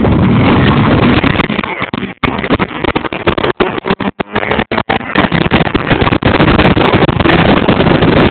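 Turbocharged Honda Civic and a second car launching off the line and accelerating hard down a drag strip, the engines loud and buffeted by wind on the microphone. The sound cuts out in several short gaps from about two to five seconds in.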